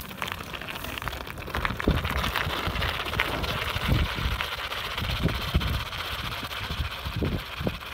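Steady rushing hiss of a three-wheeled ice sailer's rubber tyres rolling over bare lake ice, with irregular low thumps of wind buffeting the microphone. The hiss falls away near the end as the sailer moves off.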